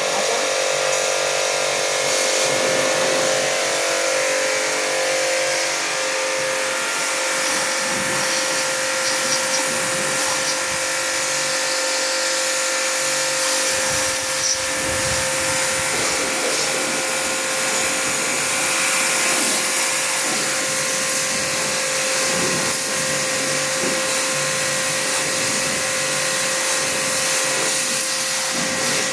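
Agaro Supreme electric pressure washer running continuously: a steady motor hum with a high hiss over it.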